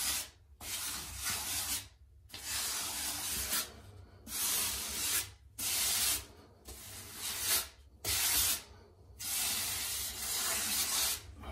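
Grout float scraping wet grout across a river-rock pebble tile floor, pressing it into the gaps between the stones: about seven scraping strokes, each a second or so long, with short pauses between.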